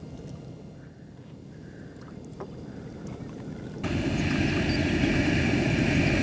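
Steady outdoor rumble, low at first, stepping up suddenly about four seconds in to a much louder, fuller steady noise with a faint hum in it.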